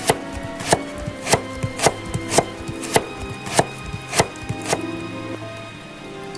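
A knife chopping vegetables on a cutting board: about nine even chops, a little under two a second, stopping about a second before the end.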